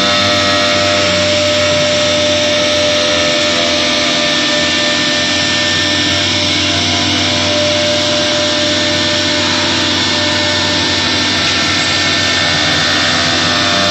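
Spindle of a 4-axis CNC router running at high speed and cutting a curved bent-plywood panel: a steady high whine over a loud, even machining noise.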